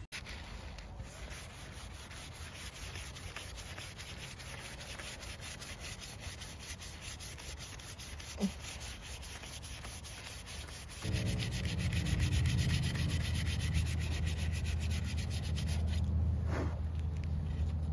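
Sandpaper rubbed back and forth along a bare wooden stick by hand, in quick, even rasping strokes, several a second. About eleven seconds in, a steady low rumble joins underneath.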